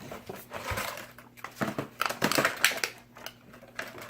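Plastic Voltron action-figure parts being handled and fitted together: irregular clicks, knocks and rustles.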